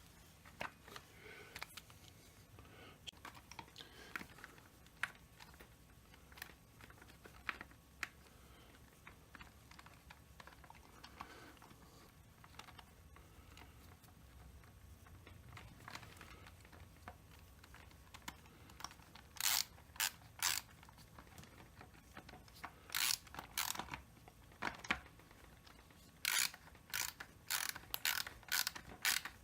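Light clicks and taps of small parts being handled, then from about two-thirds of the way in, a hand ratchet clicking in quick runs, three or four times, as two 4x16 screws are driven into the chainsaw housing.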